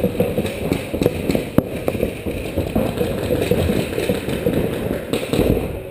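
Reball markers firing in rapid, irregular volleys, a dense clatter of pops and knocks over a low rumble.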